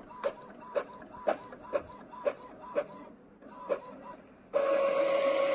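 Epson L1210 ink-tank inkjet printer mechanism at work: a regular run of clicks, about two a second, with a brief pause. Then, about four and a half seconds in, a louder steady motor whir starts.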